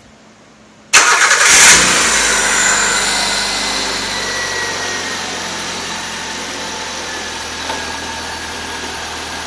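Suzuki G13 1.3-litre four-cylinder engine starts suddenly about a second in, running fast at first. It then settles, slowing into a steady, smooth idle through a makeshift exhaust.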